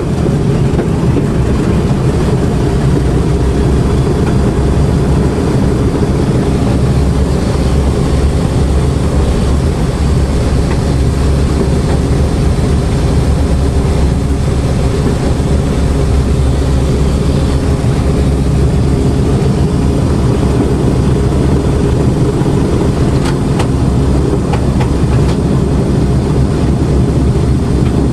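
The B-25 Mitchell bomber's twin Wright R-2600 Cyclone radial engines running steadily: a loud, low drone heard from inside the fuselage.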